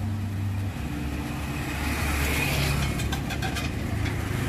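Low, steady hum of an idling engine, its pitch shifting slightly less than a second in. A few faint light clicks come around three seconds in.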